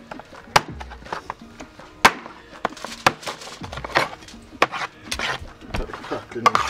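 Two steel cleavers chopping roast pork on a metal tray: irregular sharp strikes, about one to two a second, over background music.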